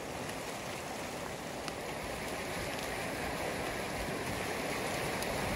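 Muddy flash-flood debris flow rushing down a creek channel past a log jam: a steady rush of thick, debris-laden water that grows slightly louder toward the end.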